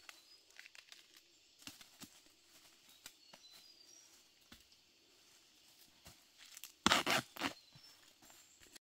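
Small rustles and clicks of dry leaves and bamboo-shoot husk being handled, then, about seven seconds in, a loud brief tearing crackle as the husk sheaths are stripped from a bamboo shoot.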